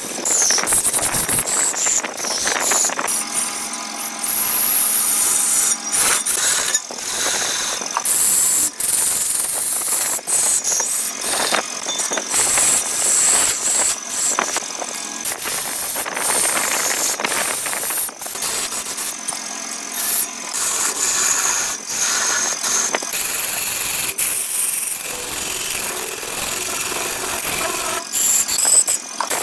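A hand gouge cutting into a large log spinning on a big wood lathe: a continuous rough scraping hiss of shavings peeling off, broken by frequent short clicks and knocks as the tool bites.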